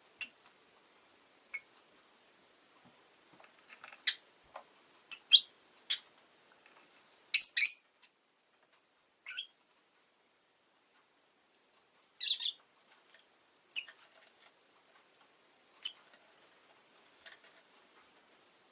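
Rosy-faced lovebird giving short, sharp, high chirps at irregular intervals, with the loudest quick runs of calls about seven and twelve seconds in.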